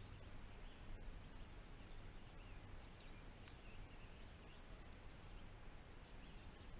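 Quiet lake ambience: faint, scattered short bird chirps over a steady high-pitched hiss.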